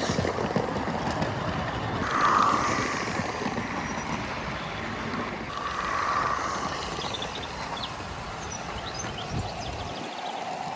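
32mm gauge live steam model locomotive running on the track, a steady steam hiss that swells twice as it goes by.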